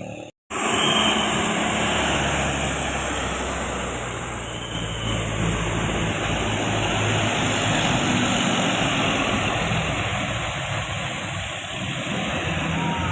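Road traffic: a passing vehicle's engine and tyre noise starts abruptly about half a second in, loudest at first and slowly easing off, with a steady high whine over it throughout.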